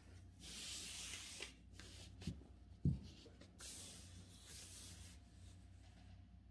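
Sheet of calligraphy paper being slid across the desk by hand, a soft rubbing hiss in two strokes, with a light knock and then a sharper thump near the middle.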